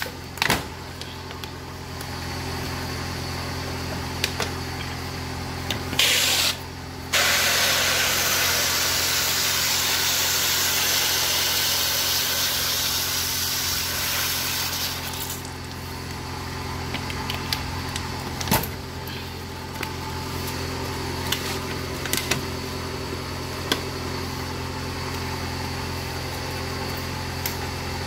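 Car engine idling with a steady hum. About six seconds in, a loud hiss of water rushing into a plastic bottle starts, breaks off briefly, then runs on for about eight seconds before stopping; sharp clicks and crackles of plastic bottles being handled come and go.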